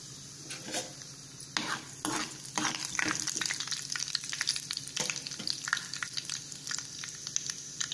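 Mustard seeds, chana dal and cumin frying in hot oil in a kadai: a steady sizzle with sharp pops and crackles as the mustard seeds splutter, busier from about a second and a half in. A steel spoon scrapes the pan as it stirs.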